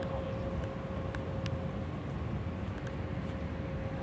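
Steady low rumble of outdoor background noise, with a faint steady hum and a few scattered light clicks.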